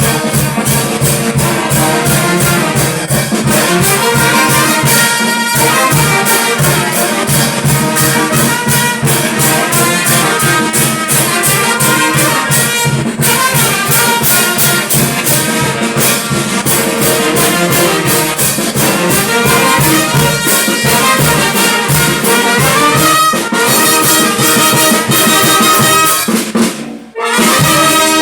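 Brass band music: trumpets and trombones playing over a steady, fast drumbeat. The music drops out briefly near the end, then comes back.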